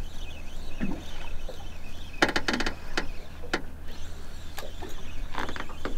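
Sharp clicks and knocks of fishing tackle being handled, with a quick rattling run of them about two seconds in and another near the end, over the low steady hum of a boat's engine.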